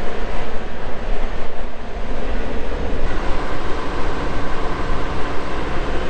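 Compact tractor's engine running steadily under load as the tractor drives forward, grading dirt with its front-loader bucket. A higher steady tone joins in about halfway through.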